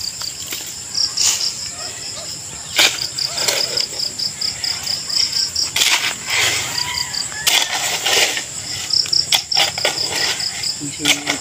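Shovel blade digging into soil, a handful of separate strikes and scrapes a second or more apart. Crickets chirp steadily behind it in short pulsed trills.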